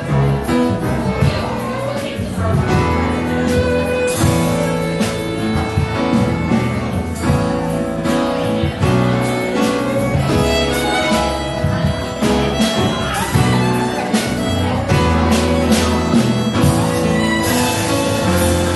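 Live instrumental music from a small band: violin, upright double bass and a drum kit playing together, with drum and cymbal strikes throughout.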